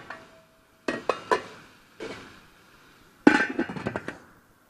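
Metal cookware clinking and knocking as a stainless-steel lid is handled and set on a pot: a few sharp clicks about a second in, then a denser clatter of knocks about three seconds in.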